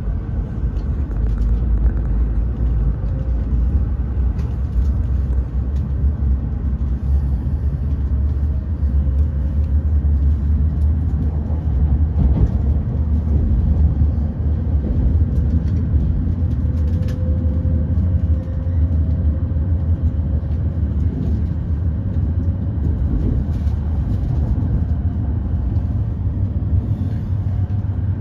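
Inside the cabin of a Shinkansen bullet train pulling out of a station: a steady low rumble of the car running on the track, with a faint whine now and then.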